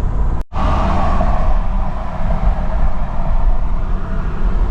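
Car road noise and engine rumble heard from inside a moving car, steady and low, with a brief break about half a second in followed by a hiss that fades away.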